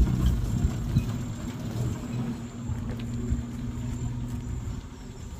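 Maruti Gypsy 4x4 engine running steadily at low revs, a low hum, with a short knock at the start and another about a second in. It fades a little near the end.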